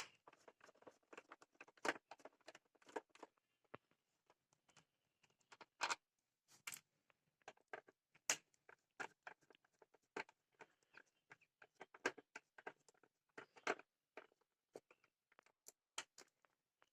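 Scattered small clicks and scrapes of a screwdriver turning out the screws of a motorcycle's air filter box cover, with quiet gaps between them.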